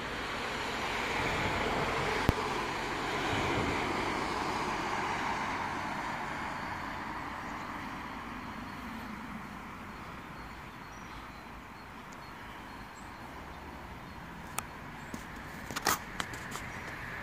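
Road traffic passing on the street beside the tram platform. One vehicle's tyre and engine noise swells over the first few seconds and fades away, leaving a steadier low traffic hum, with a few sharp clicks near the end.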